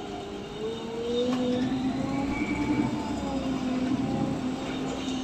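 Cabin sound of a 2019 MAN Lion's City CNG city bus under way: the engine and drivetrain run with a steady whine that dips slightly, then rises in pitch about a second in, over a low rumble.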